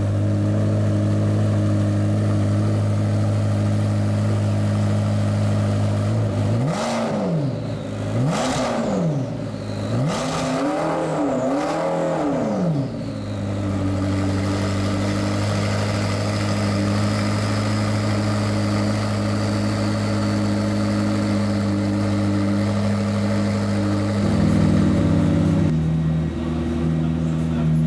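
McLaren P1 GTR's twin-turbo V8 idling, blipped about four times in quick succession in the first half, each rev climbing and dropping back. It then settles to a steady idle that shifts pitch near the end.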